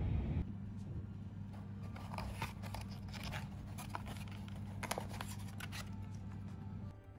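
Moulded-fibre takeaway food boxes being handled and a lid pulled off: a run of dry scraping and crackling clicks over a steady low hum.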